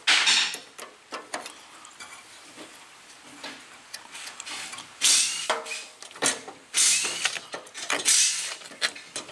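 Ratcheting wrench clicking in several short bursts as it loosens a battery terminal nut to disconnect the car battery.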